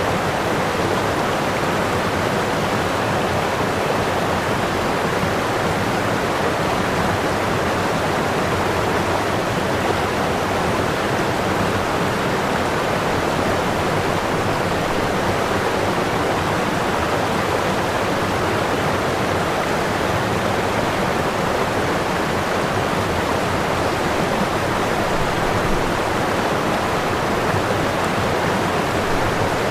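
A steady, even rushing noise with no distinct events or rhythm, strongest in the middle of the range.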